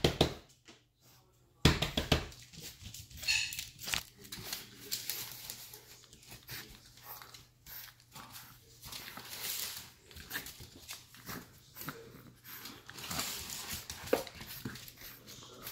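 A Shorty Bull puppy's small noises with crinkling and rustling, loudest about two seconds in, then quieter scuffling and handling sounds.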